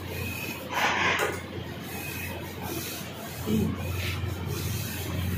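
CNC laser cutting machine running as it cuts sheet metal: a steady low hum under a hiss, with a brief louder burst of hissing about a second in.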